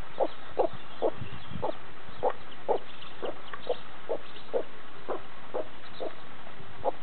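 Mother hen clucking steadily to her chicks, short low clucks about twice a second, with faint high peeping from the chicks now and then.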